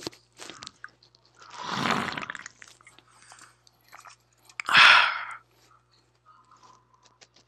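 Mouth sounds of someone drinking from a can, picked up close on a headset microphone: swallowing and breathy noises in two swells, the louder and shorter one about five seconds in, with a few small clicks between.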